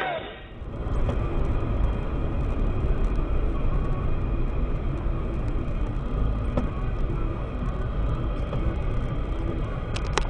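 Steady low rumble of tyres and engine heard inside the cabin of a moving car. A few sharp clicks come near the end.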